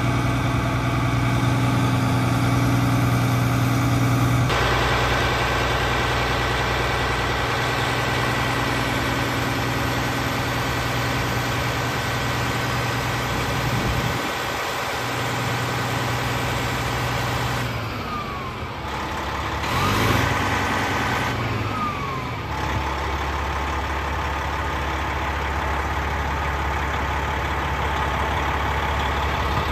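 Detroit Diesel Series 60 engine of a 2001 American LaFrance Eagle tower ladder truck running steadily at idle while the truck's aerial is operated. Its tone shifts abruptly about four seconds in and again a little past the middle, with a brief sliding whine.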